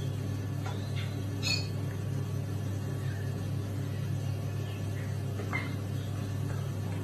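An otter giving a few short, high squeaks, the loudest about a second and a half in and another near five and a half seconds, over a steady low hum.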